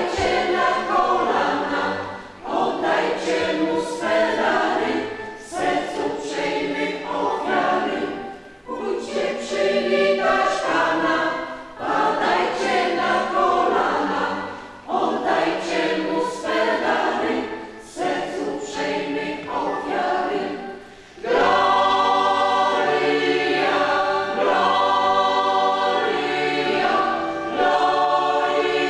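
A choir singing a Polish Christmas carol in phrases broken by short pauses. About two-thirds of the way in, the sound becomes fuller and more sustained.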